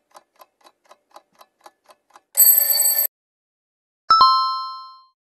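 Sound-effect clock ticking about four times a second as a countdown, then a short alarm-clock ring a little past two seconds in. About four seconds in, a bright two-tone chime sounds and fades over about a second, marking the reveal of the correct answer.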